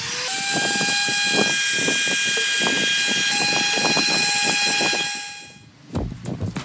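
Hot-air heat gun blowing on a phone's back panel to soften the adhesive: a steady rushing hiss with a high, even whine from its fan motor. It dies away about five seconds in.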